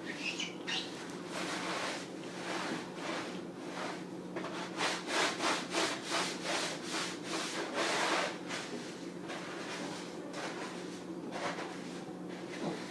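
Sponge scrubbing the inside of a refrigerator: repeated back-and-forth rubbing strokes, with a run of quicker, louder strokes about halfway through.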